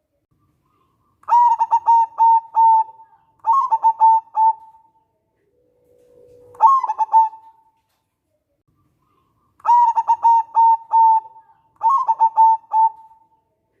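Local zebra dove (perkutut) cooing in a run of phrases, each a quick series of short notes, with pauses between the phrases. One phrase, about six seconds in, opens with a low drawn-out note before the notes rise into the usual coo.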